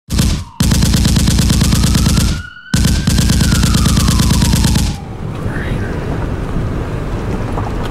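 Loud rapid-fire rattling like machine-gun fire, in two long bursts with a short break between them, with a whistling tone gliding up and then down over it. About five seconds in it gives way to a low, steady rumble.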